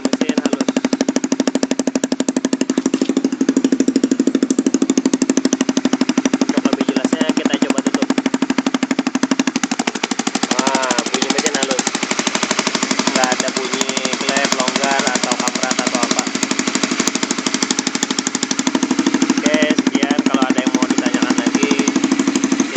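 Honda CB150R single-cylinder four-stroke motorcycle engine running steadily, with rapid even firing pulses.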